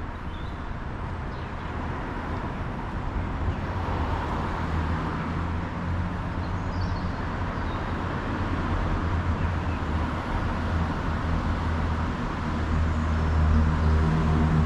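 Road traffic passing in a city street: a steady hum of car engines and tyres, growing louder near the end as a vehicle comes close.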